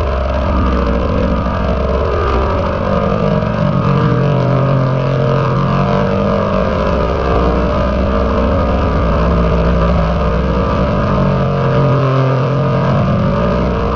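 A loud, steady, distorted drone from heavily layered and pitch-shifted audio, as made for a G Major meme effect. A low hum holds and shifts between a few pitches underneath.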